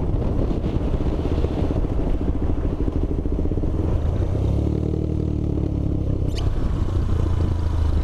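KTM 390 Adventure's single-cylinder engine running while the bike is ridden and slows down, its note settling into a steadier, lower hum about halfway through, with a short high click about six seconds in.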